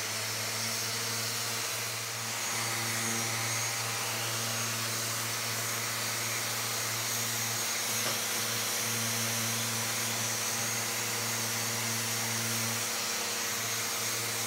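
Festool electric sander with dust extraction running steadily on a wood slab, a motor hum with a hiss of sanding over it. It eases off right at the end.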